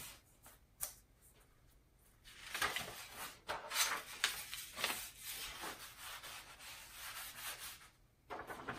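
Paper towel rubbing and scrubbing over a sheet of Tyvek to wipe off wet ink, in irregular scratchy strokes that start a couple of seconds in. Near the end comes a louder papery rustle as the Tyvek sheet is handled.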